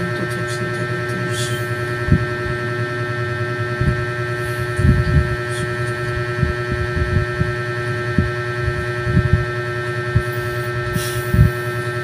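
Steady electrical hum made of several constant tones, over irregular low thumps and rumbles.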